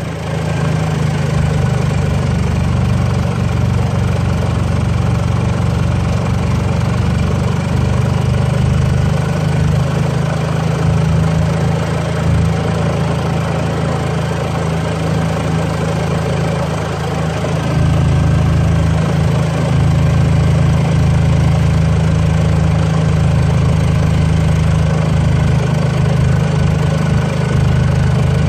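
The gas engine of a 1987 Club Car golf cart running steadily under load as it pulls up a hill, getting louder about two-thirds of the way through. It never seems to open up, which the owner puts down to carburetor adjustment.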